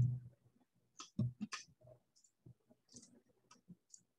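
Light clicking from a computer keyboard and mouse: a quick run of four clicks about a second in, then scattered fainter clicks.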